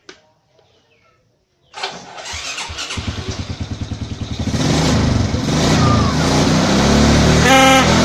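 Motorcycle engine started about two seconds in, then running with a fast, even pulse that grows louder from about halfway. Near the end a homemade horn, built from an old toy's sound unit and a horn trumpet, sounds a short pitched blast.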